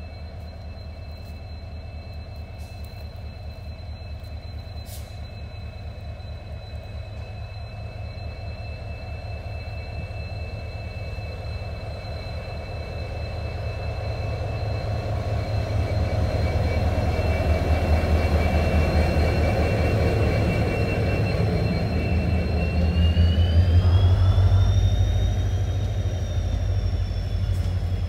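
WDP4D diesel-electric locomotive with an EMD 16-cylinder two-stroke engine, approaching and passing at speed with a passenger train. The engine's low drone and a high whine build steadily as it nears. The whine glides upward in pitch as the locomotive goes by, and the coaches then rumble past over the rails.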